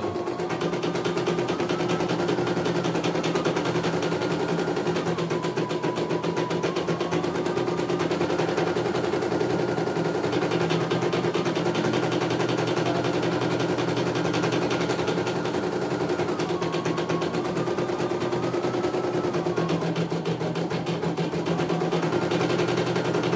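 CNY E900 portable embroidery machine stitching a design: a fast, steady needle clatter, with a whine that steps up and down in pitch every few seconds.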